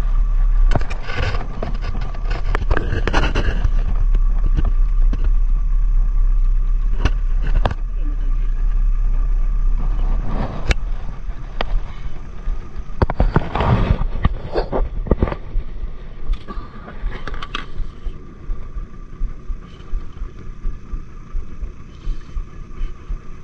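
Small fishing boat's engine running steadily with a low rumble, under scattered clicks and scrapes of fishing tackle being handled close to the microphone. The rumble eases off about two-thirds of the way through.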